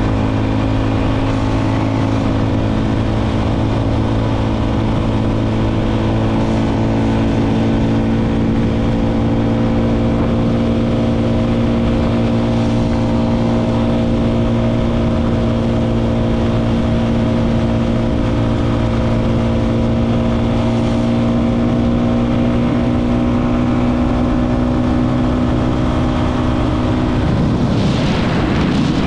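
Motorcycle engine running at a steady cruising pace. Near the end the steady engine note breaks off and changes quickly in pitch.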